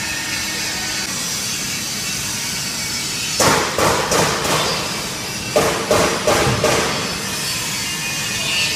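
Vacuum homogenizer mixer running with a steady noise. Two clusters of sharp knocks come about three and a half and five and a half seconds in.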